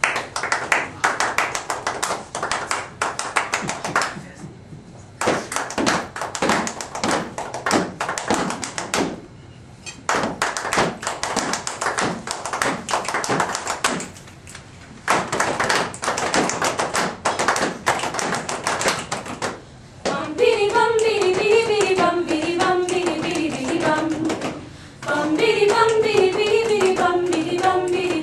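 A group of singers keeping a rhythm with hand claps and taps, in repeated phrases of about five seconds broken by short pauses. About twenty seconds in, their voices enter with a sustained, slowly falling melody over the continuing percussion.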